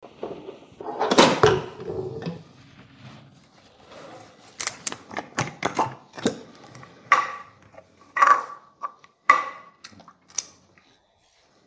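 SodaStream machine carbonating a bottle of water: a loud burst of gas about a second in that dies away within a couple of seconds. This is followed by a series of plastic clicks and knocks as the bottle is handled and the cap of a syrup bottle is opened.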